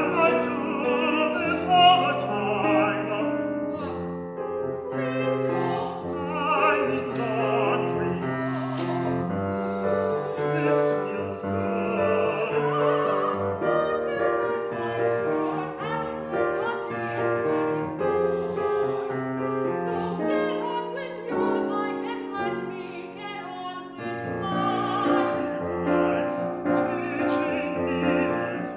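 Operatic singing with piano accompaniment; the voice holds notes with a wide vibrato.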